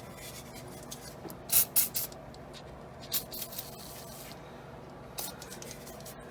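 Aerosol can of PB Blaster penetrating oil sprayed onto an old, rusty shock absorber in several short hissing squirts, the loudest about a second and a half in.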